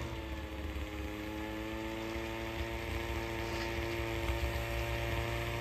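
Buran snowmobile's two-stroke engine running steadily, an even-pitched drone.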